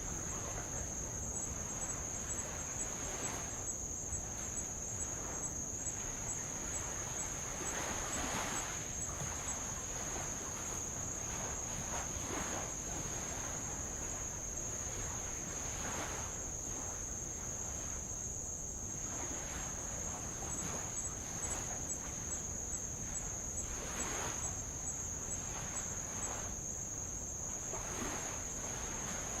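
A steady, high-pitched drone of tropical insects, unbroken, with soft washes of light waves on old lava rock swelling about every four seconds.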